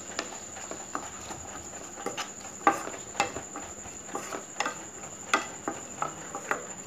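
A spatula stirring diced onions and carrots in oil in a nonstick kadai, with irregular clicks and taps as it knocks and scrapes against the pan.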